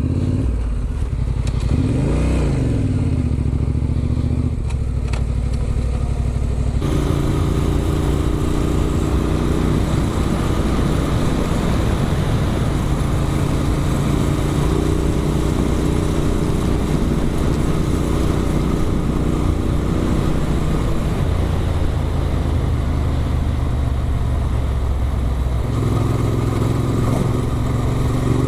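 Adventure motorcycle with an Arrow aftermarket exhaust running on the road at a steady cruise. The engine note steps in pitch several times as speed changes, and the sound turns fuller and brighter about seven seconds in.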